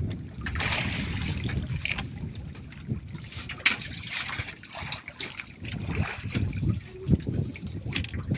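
Wind buffeting the microphone and sea water lapping against the hull of an outrigger boat, with a few sharp knocks as a caught fish and fishing line are handled; the loudest knock comes about three and a half seconds in.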